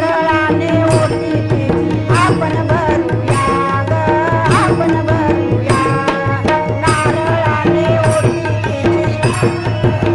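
Women's group singing a Marathi devotional bhajan in unison, accompanied by a laced two-headed barrel drum and small hand cymbals and wooden clappers striking a steady beat.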